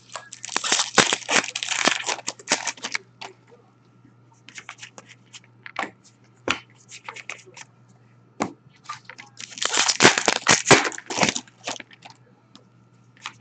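Trading-card pack wrappers being torn open and crinkled in two spells, one starting just after the start and one about ten seconds in, with scattered light clicks and taps of cards being handled in between.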